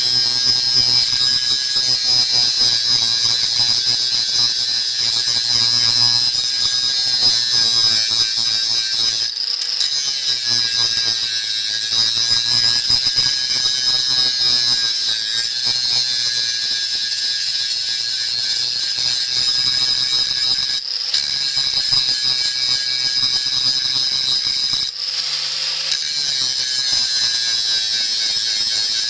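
Power tool with an abrasive deburring and polishing a steel frame, a steady high-pitched whine over a low hum, easing off briefly three times.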